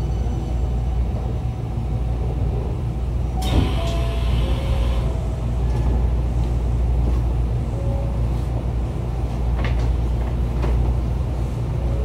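Hankyu 1300 series electric train with Toyo IGBT traction running at speed: a steady low rumble with short steady tones coming and going. A sharp knock with a brief hiss comes about three and a half seconds in, and two lighter knocks near ten seconds.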